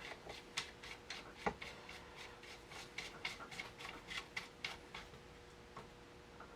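Light, irregular clicks and ticks of small stainless steel shotgun parts being handled and fitted together during reassembly, with one sharper tap about one and a half seconds in, the clicks thinning out near the end.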